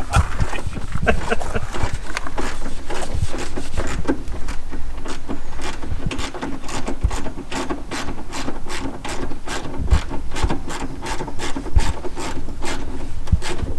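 Irregular knocks and scraping, then a steady run of mechanical ratchet-like clicking, about four clicks a second, from about four seconds in.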